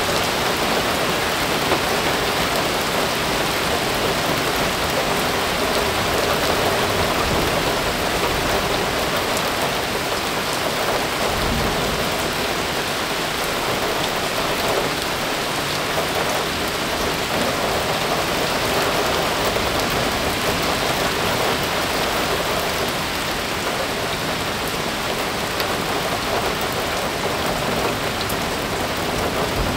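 Heavy rain pouring steadily onto standing water and waterlogged grass, a dense continuous hiss of drops splashing into puddles.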